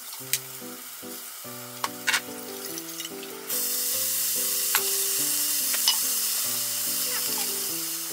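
Soy sauce and sugar mixture poured into a hot frying pan of bell pepper and asparagus: a loud sizzle starts suddenly about three and a half seconds in and keeps going, easing slightly. A few light clinks come before it, over background music.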